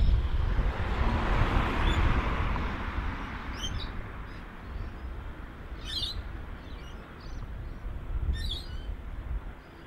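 Jet engines of a taxiing Airbus A380 (Rolls-Royce Trent 900s) giving a broad rush that is strongest in the first few seconds and then fades, over a low rumble. Birds chirp briefly three times, about 3.5, 6 and 8.5 seconds in.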